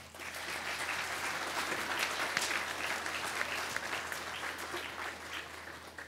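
A large audience applauding, many hands clapping at once. The clapping starts all at once and dies away near the end.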